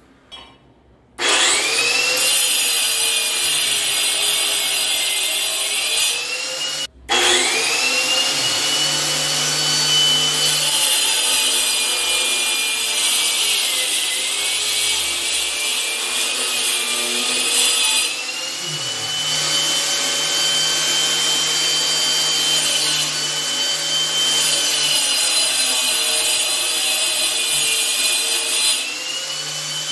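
Angle grinder with a masonry cutting disc cutting into the ceramic-tiled concrete wall. It starts about a second in, cuts out for a moment around seven seconds, then runs again, its motor whine sagging and recovering as the disc bites.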